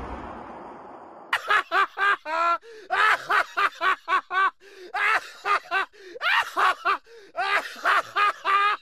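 The dying tail of a bang fades out over the first second, then a high-pitched voice laughs in a long run of quick short bursts, several a second, with brief pauses.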